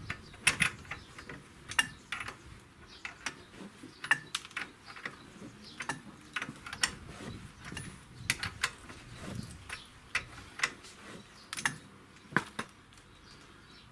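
Irregular sharp metallic clicks and clinks, about one to three a second, from a wrench working the ball-joint stud nut on a car's front lower control arm.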